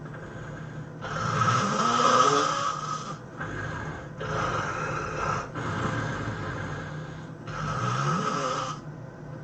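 A sleeping person snoring heavily: about five snoring breaths in a row, the loudest about a second in, and the first and last rising in pitch.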